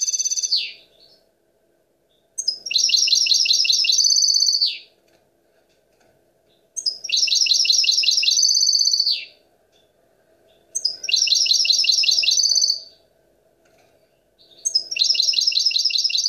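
European goldfinch singing: the same phrase, a rapid run of high notes lasting about two seconds and ending in a short falling note, comes four times at intervals of about four seconds.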